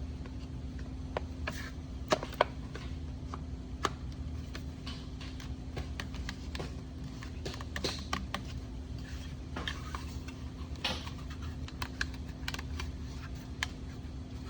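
Scattered small clicks and taps of model rocket kit parts being handled and fitted while the fins are aligned on the fin can, over a steady low hum.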